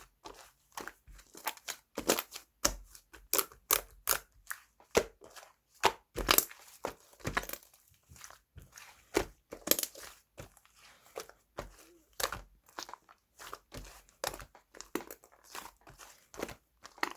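Strawberry whipped-cream slime being pressed and squeezed by hand, giving an irregular run of sharp crackling pops and clicks, a few each second.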